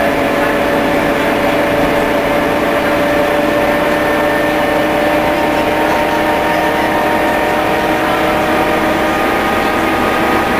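MCW Metrobus diesel bus running steadily, heard from inside the passenger saloon: an even engine drone with a few steady whining tones over road and body noise.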